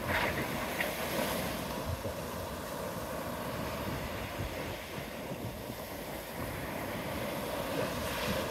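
Surf breaking and washing up the beach in a steady wash, swelling just at the start and again near the end, with wind buffeting the microphone.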